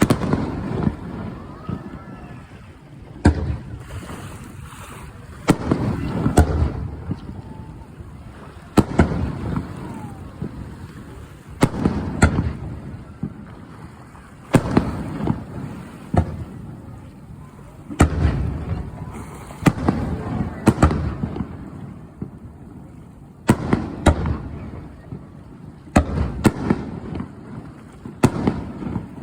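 Aerial fireworks shells bursting overhead, about fifteen sharp bangs at irregular intervals, each trailing off in a low rumble.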